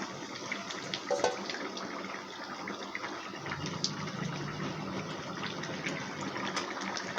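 Shing fish curry broth boiling in a pan: a steady bubbling hiss with scattered small pops.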